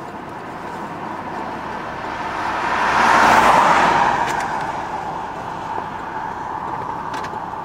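A vehicle passing on the road: tyre and engine noise swelling to a peak about three and a half seconds in, then fading away.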